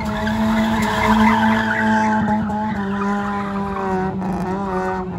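A car doing donuts on pavement: its engine is held at high revs while the spinning tyres skid. The engine pitch dips slightly about three seconds in and wavers near the end.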